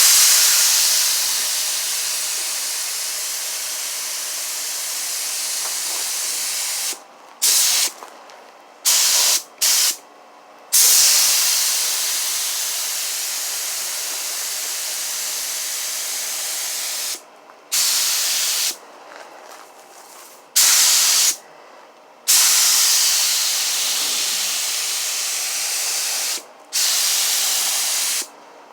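Compressed-air paint spray gun hissing as its trigger is pulled, spraying gloss black acrylic enamel. There are three long passes of several seconds each and a handful of short bursts between them, each starting and stopping abruptly.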